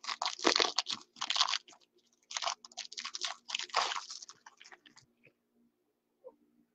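Crinkling and tearing of a foil trading-card pack wrapper: a run of irregular scratchy rustles lasting about five seconds, then it stops.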